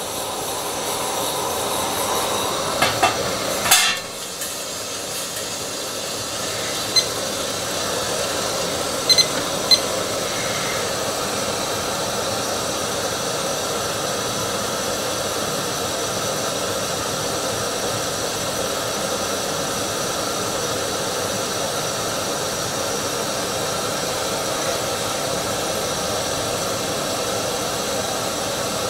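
Gas canister camp stove burner hissing steadily under a stainless steel US GI mess kit pan of water. Metal clinks and knocks about three to four seconds in as the pan is set on the burner, then a few light clicks around seven to ten seconds.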